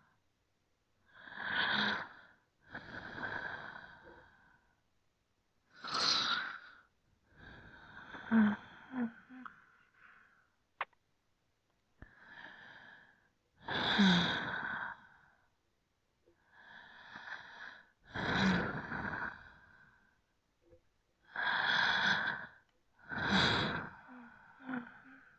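A person breathing slowly and deeply: about ten breaths, inhales and exhales in pairs a few seconds apart with short pauses between, a few exhales carrying a brief throaty rasp.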